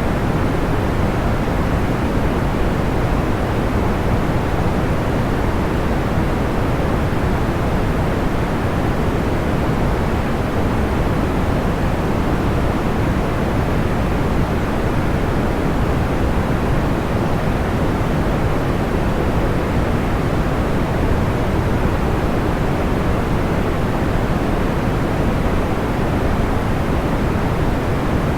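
Steady, unchanging white noise weighted toward the low end, a deep even rushing hiss with no crackles or pops standing out.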